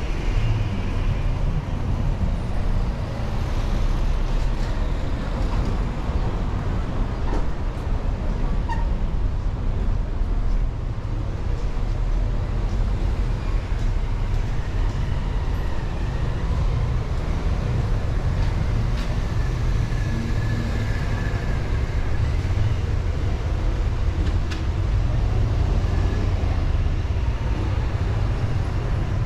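Steady street traffic noise: the engines of cars, buses and trucks running in a town street.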